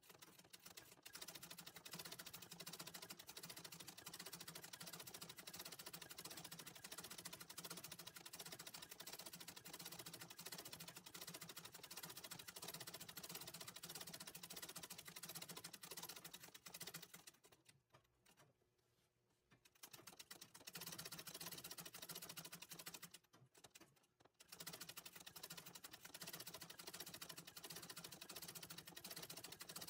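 Antique treadle sewing machine stitching freehand embroidery, running faintly and steadily, stopping briefly twice past the middle.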